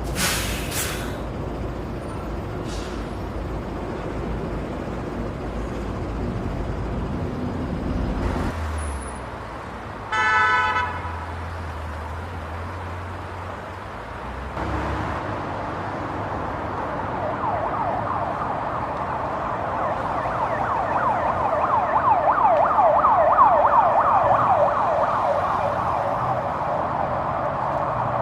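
Road traffic with a single car horn blast about ten seconds in, then an emergency vehicle's siren in a fast rising-and-falling yelp that grows louder and then fades a little.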